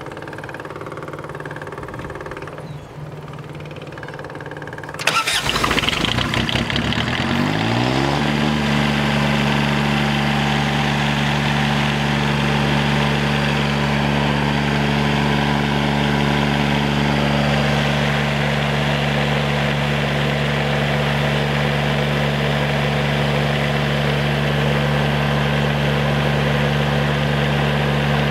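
Cummins Onan 7.5MDKBJ marine diesel generator starting: about five seconds in it cranks and catches, rises in pitch to speed over two or three seconds, then runs steadily at a constant speed.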